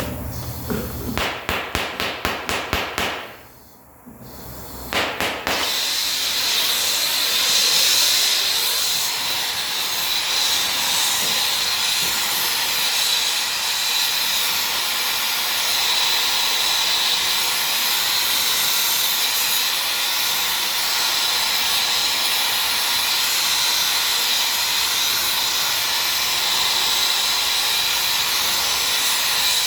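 A quick run of rattling clicks, then a long, steady hiss of escaping air, typical of compressed air in a tire shop.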